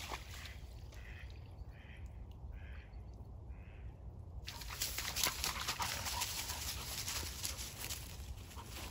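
A duck quacking four times at an even pace, the calls a little under a second apart. From about halfway through, a steady rustling hiss follows.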